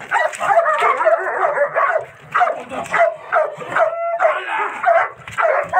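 German Shepherd barking rapidly and without pause while being agitated by a decoy in protection (attack) training, with a brief whine about four seconds in.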